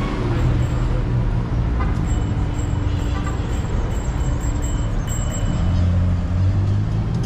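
Busy city street traffic: a steady rumble of passing vehicles, with a deeper engine drone swelling about six seconds in.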